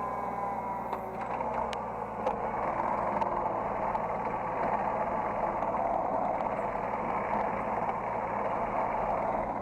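Hydraulic excavator's engine running, heard from the operator's seat. About a second in it grows louder and rougher, with a few light clicks, and it eases off near the end.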